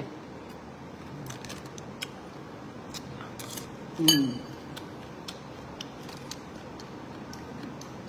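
Eating at a table: a metal spoon clicking and clinking against a ceramic bowl and plastic food bags crinkling, a scatter of small sharp ticks. About four seconds in there is one short vocal sound that falls in pitch.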